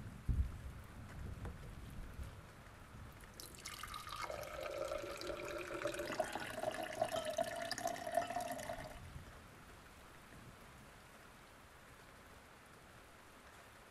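Water running, like a tap into a sink, for about five seconds from about a third of the way in, then it stops.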